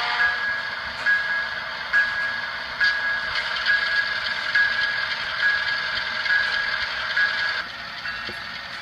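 Sound decoder of an HO scale CSX diesel locomotive model ringing its bell, a single ding about every second, over the steady hiss of the idling engine sound from its small speaker. It stops suddenly near the end.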